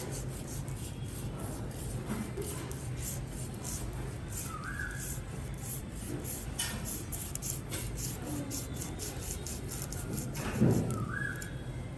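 Cleaver blade scraping the scales off a large fish in repeated rasping strokes, several a second, with one louder knock near the end.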